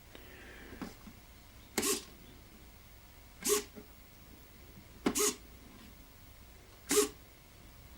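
Four short whirs, about a second and a half to two seconds apart, from the small SG90 analogue servos that drive the indicator pointers on a model railway block-signal control panel, each a quick pointer move.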